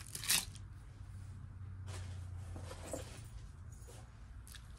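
Faint handling sounds of a multi-strand faux pearl necklace with a card number tag being moved on a cloth-covered table: a light click about a third of a second in, then a few soft clicks and rustles, over a low steady hum.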